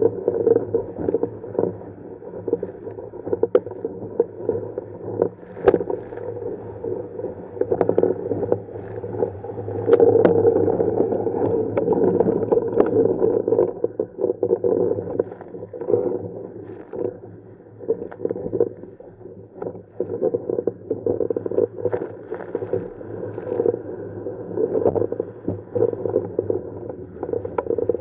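Water rushing and splashing along the hull of a Tiwal 3 inflatable sailing dinghy under sail, sounding muffled, with scattered knocks and clicks from the rigging and sheets. It is loudest about a third of the way in and drops for a few seconds in the middle as the boat slows through a tack, then builds again as it picks up speed.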